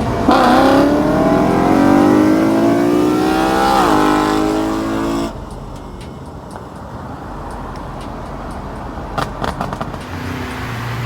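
V8 car engine pulling hard under full throttle, its pitch rising, dipping at a gear change about four seconds in, then climbing again until the throttle is lifted abruptly a little after five seconds. After that the engine runs much more quietly.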